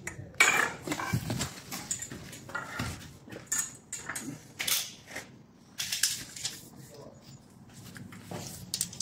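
Irregular metal clicks and knocks from handling EMT conduit while it is measured and lined up for a bend.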